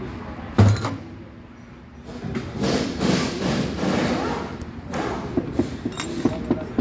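Metal engine parts handled on a metal workbench: one sharp knock under a second in, then rubbing and a run of light metallic clicks as worn bearing shells are picked up and turned over.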